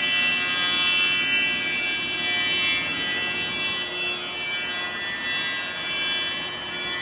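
Thickness planer running with a hardwood board feeding through, planing it down to near its final thickness. The cutterhead gives a loud, high, steady whine.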